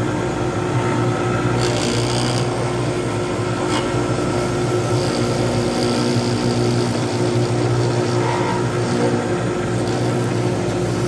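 Wood lathe running with a steady hum while a hand-held turning tool cuts a spinning poured-resin blank, throwing off shavings. There are a couple of brief louder cutting passages, about two and four seconds in.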